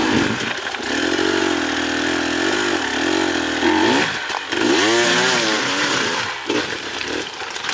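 Enduro dirt bike engine revving, its pitch wavering and then rising and falling in several quick swells as the throttle is worked.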